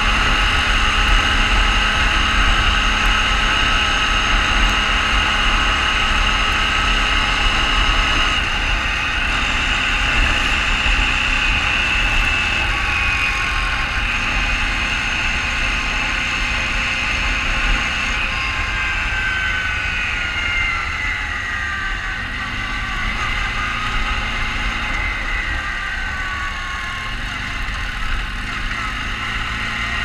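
Quad bike (ATV) engine running steadily with a whine that holds its pitch, then slowly shifts and falls in the second half.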